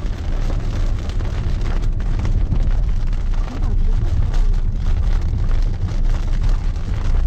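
Heavy rain pelting a car's windscreen and roof with dense, fast drops, over a steady low road rumble, heard from inside the moving car.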